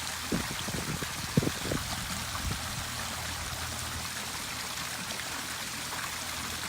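Small backyard pond waterfall splashing steadily into the pond. A few brief low knocks come in the first couple of seconds.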